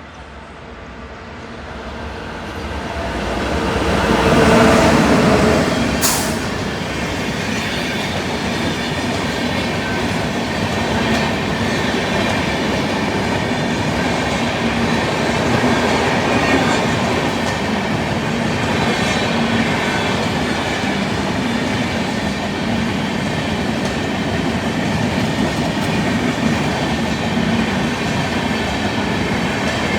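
An Indian Railways express train approaching and passing close by. The noise builds to a peak about four seconds in, with a sharp clank about six seconds in, then settles into a long steady rush of coaches rolling past with wheel noise on the rails.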